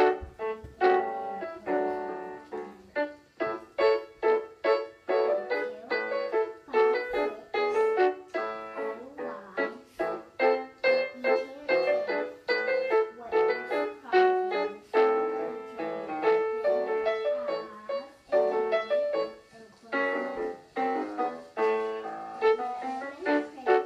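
Piano music playing a gavotte, with quick, sharply struck notes in a steady rhythm.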